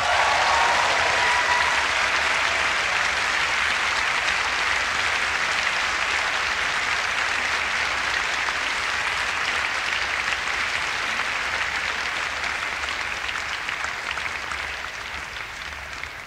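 Concert audience applauding after a jazz-fusion band's final chord, with the last notes dying away in the first couple of seconds. The applause stays steady, then slowly fades out near the end.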